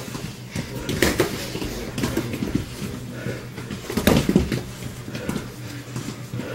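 Padded boxing gloves landing punches in sparring: scattered thuds, the loudest about a second in and a cluster around four seconds in.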